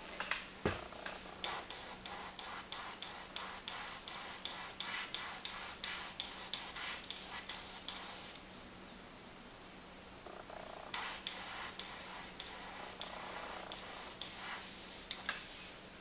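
Airbrush spraying in quick short bursts, about three a second, in two runs with a pause between. The trigger is worked to get yellow paint, just thinned with alcohol, to flow properly. A low steady hum sits underneath.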